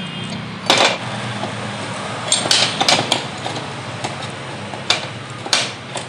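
Light metal clinks and taps as a thin metal rod touches the aluminium clutch shoe plate of a Honda Activa's clutch while its pivot pins are oiled. There are about seven separate clicks, a cluster of them a little before the middle, over a steady low hum.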